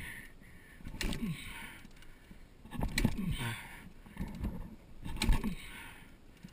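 A dirt bike engine revving in three short blips, each falling back in pitch, with clattering and rattling.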